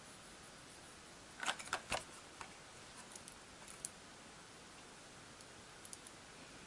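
A few light clicks and taps from art tools and plastic pastel pans being handled, loudest in a quick cluster about a second and a half in, with fainter ticks after, over quiet room tone.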